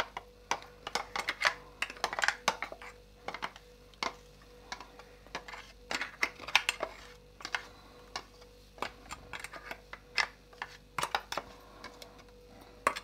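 Spoon and fingers scraping and tapping against a glass bowl in quick, irregular clicks as thick spice paste is scraped out onto a plate.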